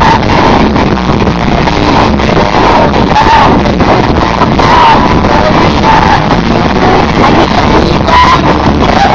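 Rock band with electric guitars playing live, loud and distorted through an overloaded phone microphone, with a melody line wavering above the dense band sound.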